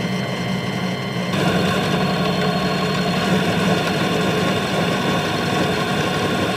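Small metal lathe running steadily with a parting tool cutting through a spinning part, the final stage of parting it off. About a second in, the sound becomes fuller and noisier.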